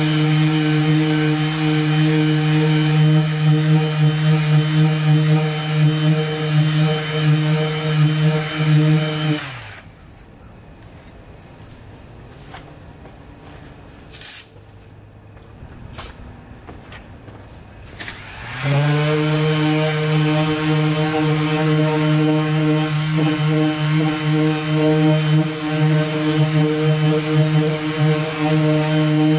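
Handheld orbital sander running against a car door's painted panel, a steady humming drone. About nine and a half seconds in it winds down and stops, a few light clicks follow, and it starts up again about eighteen and a half seconds in and runs on.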